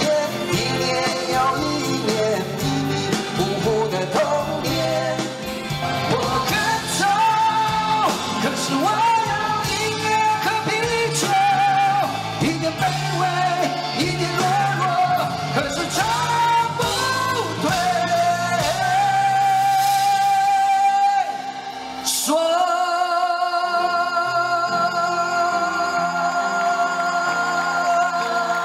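Live rock band with male vocals over acoustic and electric guitars. A little past two-thirds of the way through, the sound briefly drops, then long held sung notes follow.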